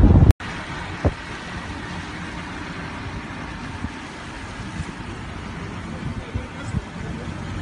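Steady road and engine noise of a car driving, heard from inside the car, with a few faint knocks. A louder low rumble cuts off abruptly a moment in.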